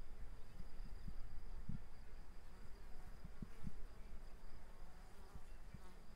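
An insect's steady high-pitched trill, over a low rumble with a few short soft thumps.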